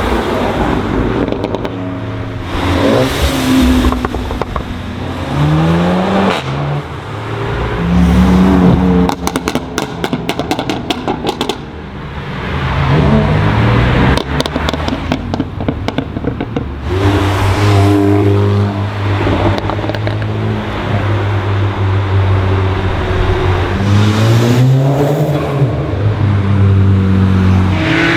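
Cars accelerating hard past, engines revving up with repeated rising pitch that drops back at each gear change. Around nine to twelve seconds in, a rapid string of exhaust crackles and pops, with a shorter burst of them a few seconds later.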